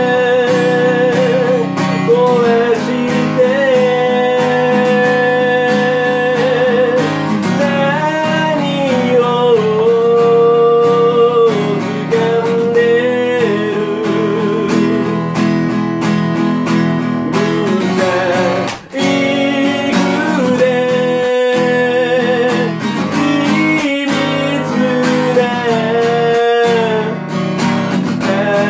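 A song with strummed acoustic guitar, and a wavering melody line held over the chords.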